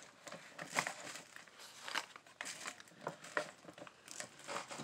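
Packaging rustling and crinkling, with scattered light clicks and taps, as small cosmetic product boxes are handled.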